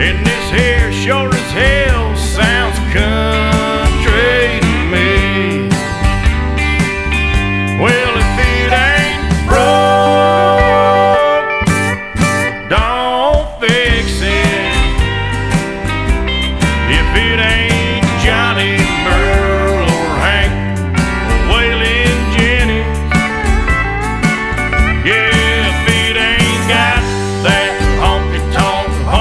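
Country music with guitars playing, with a short break in the band about halfway through.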